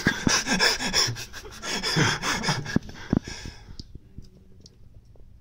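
A person's loud, breathy huffing close to the microphone for nearly four seconds, then it dies away.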